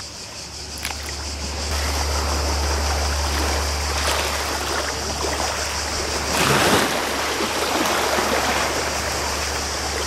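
Sea water and wind on the microphone: a steady rushing noise with a low rumble, swelling louder briefly about six and a half seconds in.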